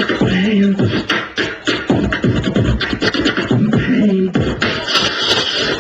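Vocal beatboxing: a fast, steady run of mouth-made kick, snare and hi-hat sounds, with short hummed bass notes twice. Near the end it adds a constant hissing hi-hat layer.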